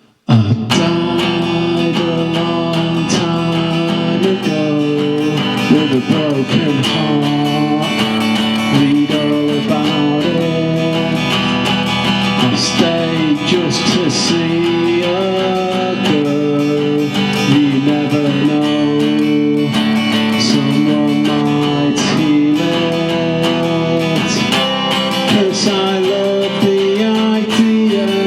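Solo acoustic guitar playing an instrumental introduction of chords and picked notes, starting abruptly after near silence.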